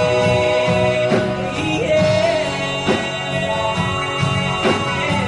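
Live country band playing a passage between sung lines, guitars and drums with a steady beat. A long held note carries over from the previous line at the start.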